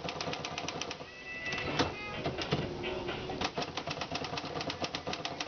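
Remington Standard manual typewriter being typed on: quick, sharp keystrokes, several a second, with a short pause about a second in.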